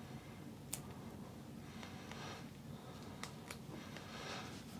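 Faint handling sounds as a shaft label is fitted to a golf club shaft: a few light clicks and soft rubbing against a quiet room.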